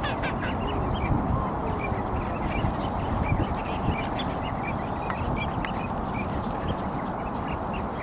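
A continuous chorus of wild waterbirds: ducks quacking among many short, high calls from a large flock.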